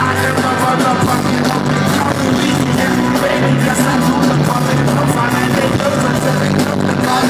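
Loud live concert music over an arena sound system, heard from within the crowd, with a bass line that moves between notes.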